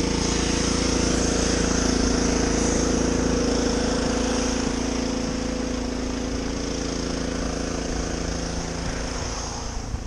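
Parked semi-trailer delivery truck's diesel running steadily at idle, a constant hum with a hiss above it, growing fainter towards the end.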